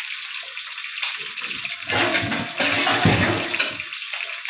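Fish frying in hot oil in a pan: a steady sizzle, swelling into a louder, fuller surge from about two seconds in to near the end.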